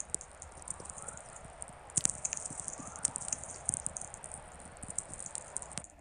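Natural VLF radio signals from the Halley VLF receiver in Antarctica, played as sound: a dense, continuous crackle of sharp clicks (sferics from lightning) under faint, repeated rising chirps of whistler-mode chorus. It cuts off suddenly near the end.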